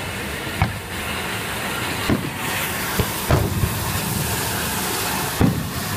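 Aerial fireworks bursting overhead, about half a dozen bangs spread irregularly, over a steady hiss.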